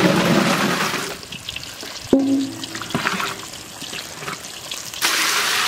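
Diced green jackfruit pouring from a tub and splashing into a large aluminium pot of water. About two seconds in a metal spatula knocks against the pot with a short ring. Near the end comes a second loud splashing rush.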